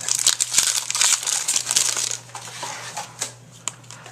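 Crinkling of a trading-card pack wrapper as cards are handled, loudest over the first two seconds, then softer rustling with a few sharp clicks.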